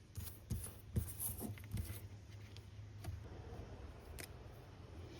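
Paper and art materials being handled on a work surface: rustling with several light knocks and clicks, busiest in the first two seconds.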